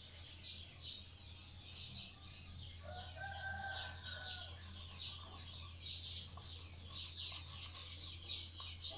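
Small birds chirping rapidly and continually, with a rooster crowing once about three seconds in, held for about a second and a half. A steady low hum runs underneath.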